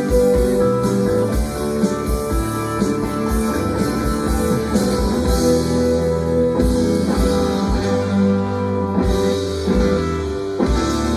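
Rock band playing an instrumental passage: guitars over a steady drum beat with a regular kick drum.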